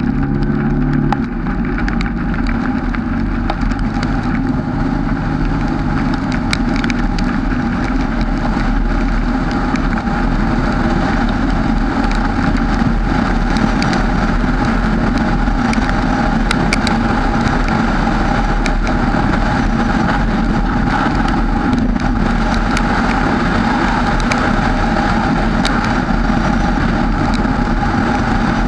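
Steady rumble of the chase vehicle's engine and road noise picked up by a GoPro, with a faint steady hum and scattered light ticks on top.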